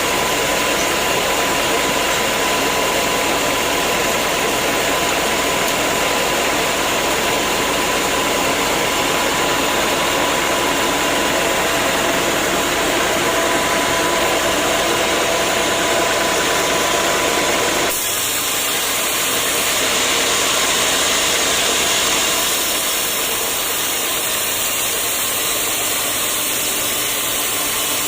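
Sawmill machinery running with a loud, steady mechanical noise and a faint steady whine. The sound changes abruptly about eighteen seconds in to a similar steady machine noise.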